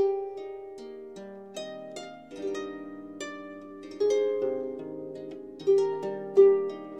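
Background music: a slow, calm melody of plucked-string notes, each note struck sharply and left to ring and fade, overlapping one another.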